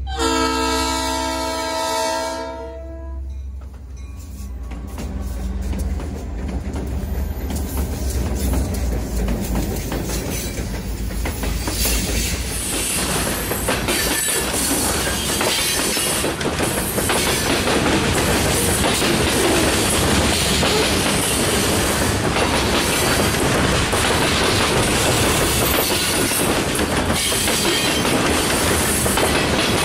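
Diesel freight locomotive sounding its horn for about three seconds, then rumbling closer and past, followed by a long string of covered hopper cars rolling by with a steady clatter of wheels over the rails.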